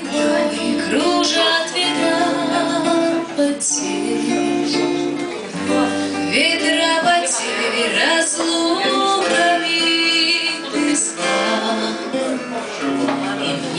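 A song with acoustic guitar strumming and a singing voice.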